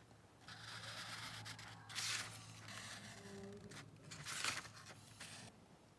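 Felt-tip marker scratching across paper in several strokes, the loudest about two seconds in and again about four and a half seconds in.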